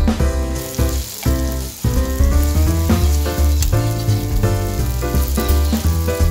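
Egg omelette frying in hot oil in a pan, a steady sizzle that comes in about half a second in, under loud background music with a heavy bass.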